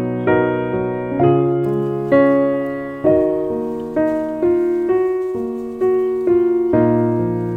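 Slow background piano music: chords struck about once a second, each left to ring and fade.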